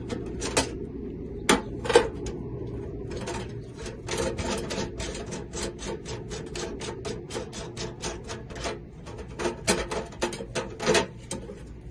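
Small hard metal pieces clicking and clattering as they are handled and sorted, with two louder knocks near the start and quick, dense clicking through most of the rest.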